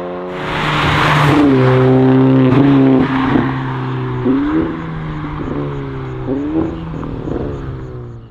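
Audi A5 B9's exhaust, a Fi Exhaust valvetronic catback and 100-cell race downpipe with the valves open, as the car accelerates hard away. The note climbs and then dips sharply at each of several gear changes. It is loudest in the first few seconds and cuts off at the end.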